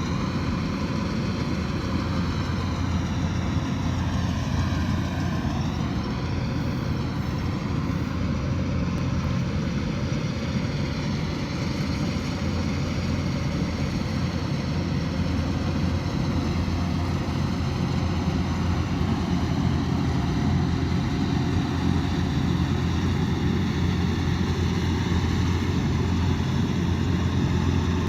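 Kubota DC108X combine harvester's diesel engine running steadily, a continuous low drone that holds level throughout.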